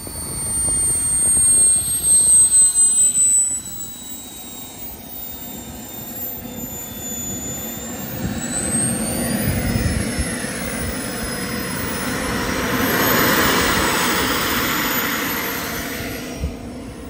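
JetMunt 210 model jet turbine in an XXL L-39 RC jet, whining high while taxiing. Its pitch climbs and falls twice as the throttle is opened and closed, with a rush of exhaust noise at the second rise. A loud fluttering rumble comes in the first few seconds.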